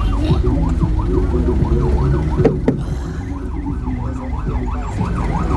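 A siren sweeping rapidly up and down, about three times a second, over the low rumble of road traffic. Two sharp knocks sound about two and a half seconds in.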